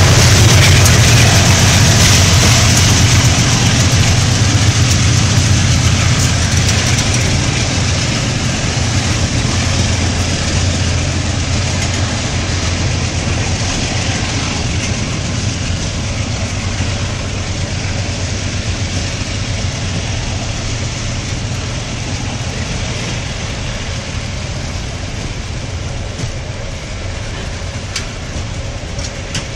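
A diesel freight train of empty gondola wagons passing close by. The trailing locomotive's diesel engine is loud at first and fades within the first few seconds. The empty wagons' wheels then rumble along the rails, growing gradually fainter as the train draws away.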